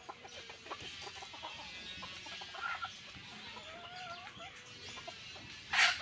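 A flock of free-range chickens clucking and calling softly as they forage, with many short calls and small ticks. A short, loud, harsh sound comes just before the end.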